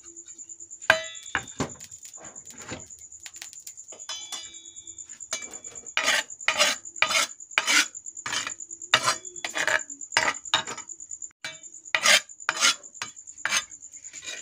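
Metal utensils clinking and scraping on cookware: a ringing clink about a second in and another about four seconds in, then a run of scraping strokes about two a second, as the wok and its spice paste are worked with a spoon or spatula.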